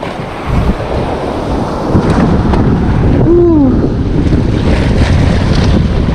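Wind buffeting the microphone over the sound of sea waves on the shore. A short falling voice-like sound comes about three and a half seconds in.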